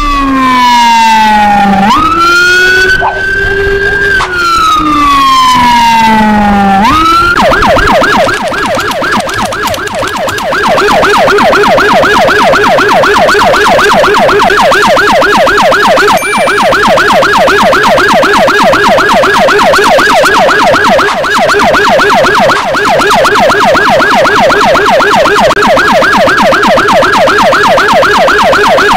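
Electronic emergency siren, loud. It runs a slow wail that falls, rises and falls again, then about seven seconds in switches to a fast, repeating yelp that continues steadily.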